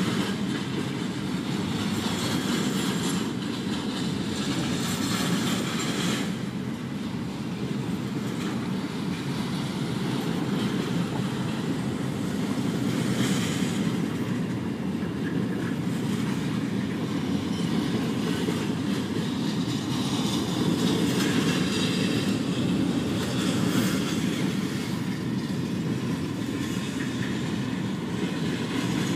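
Intermodal container freight train rolling past: a steady rumble of steel wheels on rail with clickety-clack over the rail joints.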